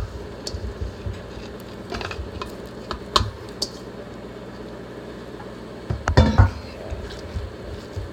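Scattered light clicks and taps of a utensil against a baking pan as meatloaf mixture is put into it, with a louder cluster of knocks about six seconds in, over a steady low hum.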